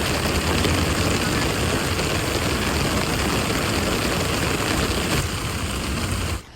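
Heavy rain falling steadily as an even, dense hiss with a low rumble underneath; it cuts off abruptly near the end.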